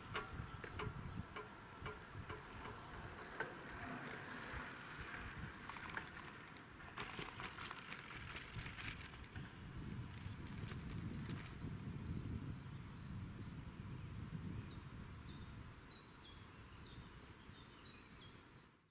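Quiet outdoor ambience at a rural railway crossing once the train has gone: a faint low rumble and hiss, with series of short high chirps a few seconds in and again near the end, fading out at the close.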